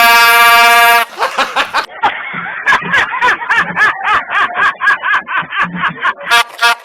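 Prank trumpet horn giving one loud, steady, blaring blast lasting about a second. It is followed by a few seconds of rapid high-pitched laughter, then three short blasts near the end, the last one longer.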